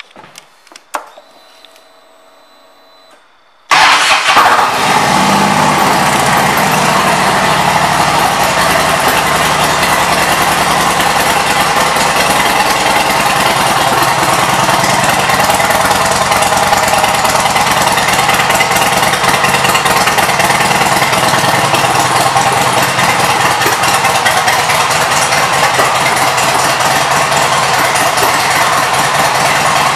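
Harley-Davidson Road King's Twin Cam 88 V-twin engine starting up about four seconds in, then running steadily at idle.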